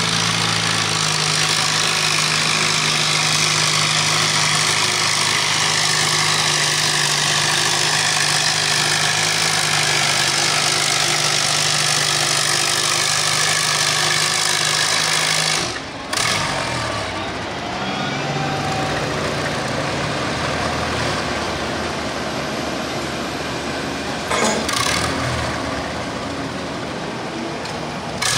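1953 International Harvester tractor engine running hard at a steady pitch while pulling a weight-transfer sled, then dropping off suddenly about 16 seconds in as the pull ends. It runs on lower and unevenly after that, with a sharp knock about 24 seconds in.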